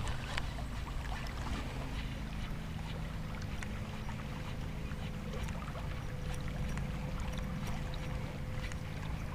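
Steady wash of flowing river water and wind on the microphone, with a few faint ticks.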